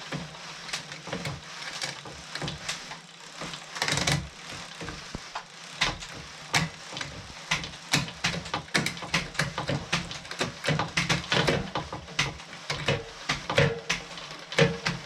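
Irregular clicks and knocks of hands and tools working on a mountain bike's parts.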